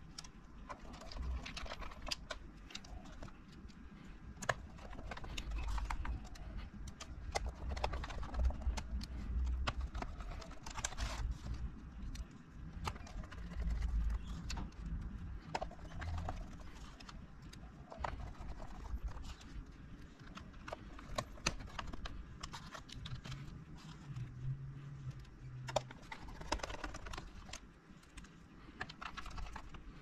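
Irregular light clicks and knocks of hands and a small screwdriver working on a mechanical keyboard, driving the screws back into the Corsair K95 RGB Platinum's case, with dull bumps of the keyboard against the bench.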